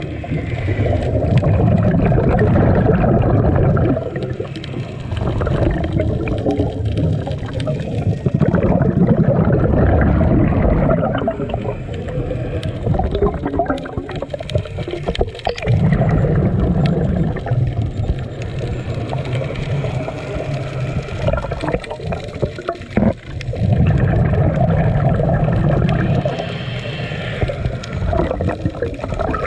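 Scuba regulator breathing underwater: a long rushing, bubbling burst of exhaled air every seven to eight seconds, with quieter stretches between the breaths.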